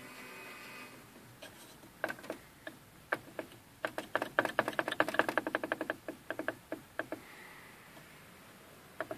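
Rapid plastic clicking from an Opel Vectra C climate control panel as its buttons and knobs are worked. There are a few scattered clicks, then a quick run of several a second about four seconds in, then a few more.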